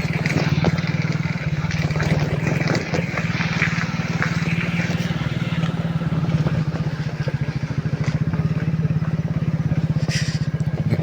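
Motorcycle engine running steadily, an even low hum of firing pulses with road and wind noise over it.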